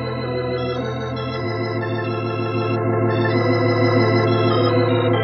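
Organ music bridge: sustained chords with a steady pulsing tremolo over a held bass note that steps down about a second and a half in.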